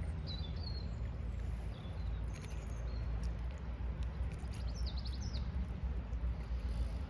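Small birds chirping in short high phrases, a few times, over a steady low rumble.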